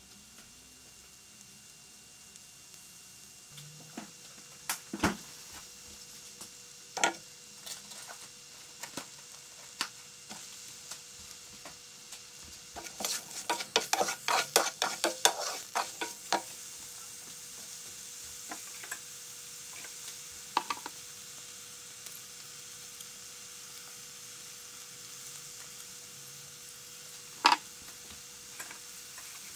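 Sliced shiitake mushrooms and bok choy sizzling in a nonstick frying pan while a wooden spoon stirs them and knocks against the pan. There is a quick run of knocks around the middle, and the sizzle grows stronger from then on.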